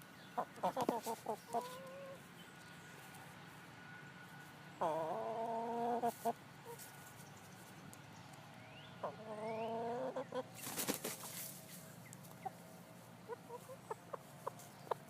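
Chickens clucking: a few short calls at first, then two longer drawn-out calls about five and nine seconds in. A sharp knock comes near eleven seconds, and light clicks follow near the end.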